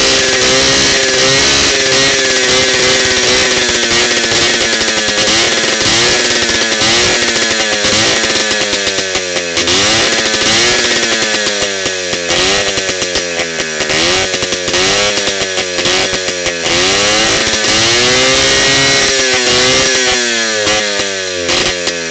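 WSK 125 single-cylinder two-stroke motorcycle engine running on a McCulloch chainsaw ignition, on its first trial run. It runs at a steady speed for the first several seconds, then is revved up and down repeatedly, about once a second, with one longer rise and hold about three quarters through.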